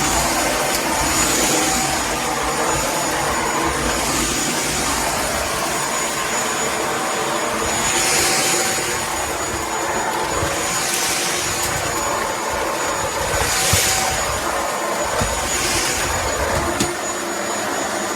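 Shark PowerDetect corded stick vacuum running over a rug, its motor giving a steady high whine under a loud hiss. The hiss swells and eases every two to three seconds in the second half.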